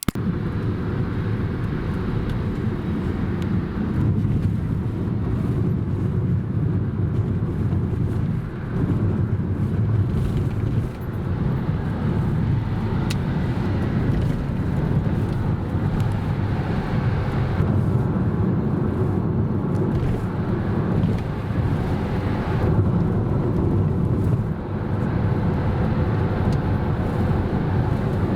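A car driving on the road: a steady rumble of engine and tyres.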